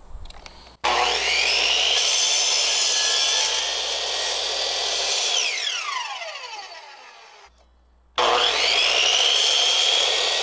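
Miter saw cutting a laminate flooring plank, twice. Each time the motor starts suddenly with a rising whine, runs steadily through the cut and winds down with a falling whine. The first cut starts just under a second in and the second about eight seconds in.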